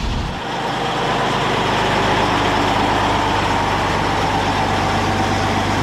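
Antonov An-225's turbofan jet engines running steadily: a low hum under a high, even whine and hiss.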